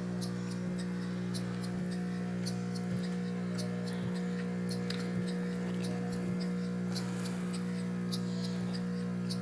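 Small piston valve model steam engine running slowly on low-pressure air, clicking lightly and regularly about twice a second, over the steady buzzing hum of the aquarium air pump that drives it.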